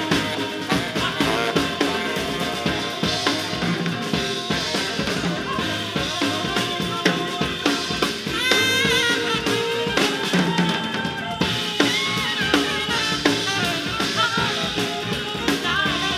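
Jazz band playing live, led by a busy drum kit with many sharp snare and cymbal strikes over upright bass and piano. About halfway through, a wavering melodic line rises above the band.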